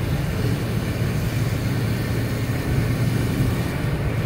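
Steady road noise heard inside a car cruising at highway speed on wet pavement: a low, even hum of engine and tyres with the hiss of water under the wheels.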